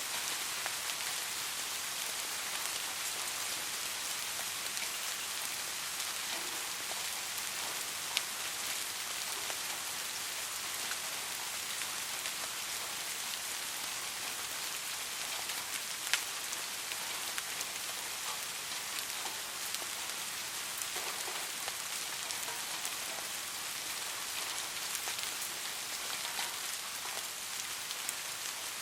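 Steady rain falling on a surface, an even hiss with scattered individual drops ticking; two drops land louder about a quarter and halfway through.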